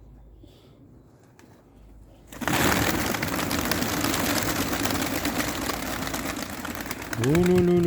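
A loud, dense clattering rustle starts suddenly about two seconds in and runs for nearly five seconds. Near the end a man starts a long drawn-out 'lu-lu-lu' call to the pigeons.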